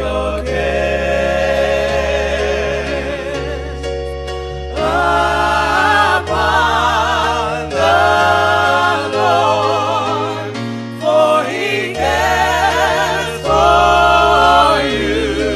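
Gospel music: a choir singing with vibrato over sustained bass notes.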